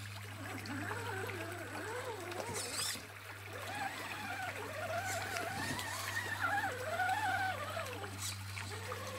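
Shallow creek water trickling and gurgling, with a steady low hum underneath.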